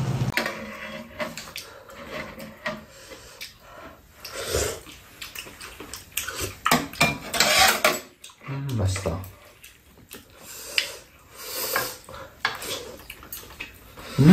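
Eating at a table: chopsticks and spoons click and scrape against bowls and a metal pan, in scattered, irregular knocks. A short low voice sound comes about two-thirds of the way through, and another right at the end.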